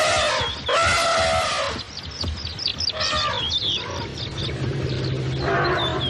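Elephant trumpeting: two long pitched calls in the first two seconds, another about three seconds in and a fourth near the end, with short high chirps between them.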